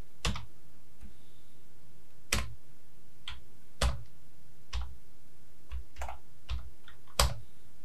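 Computer keyboard keys tapped one at a time: about ten separate keystrokes at an irregular, unhurried pace, the loudest one near the end.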